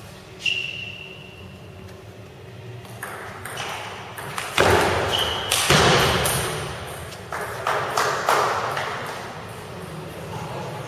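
Table tennis rally: the ball strikes paddles and the table in a string of sharp clicks, with two brief ringing pings. The loudest, densest noise comes in the middle of the rally.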